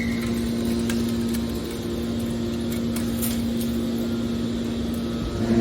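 Hydraulic metal baler's power unit running with a steady hum.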